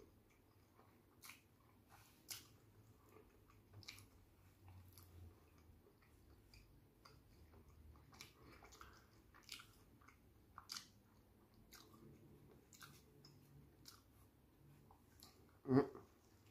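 Faint chewing of a burger: soft wet mouth clicks and smacks scattered throughout. A louder short sound near the end comes as the burger is bitten again.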